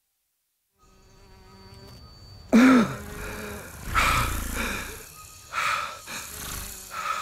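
Animated-film sound design: silence, then a faint rising hum with steady tones. About two and a half seconds in, a loud sound with a falling pitch sweep starts suddenly, followed by three more loud buzzing swells of fantasy-forest ambience.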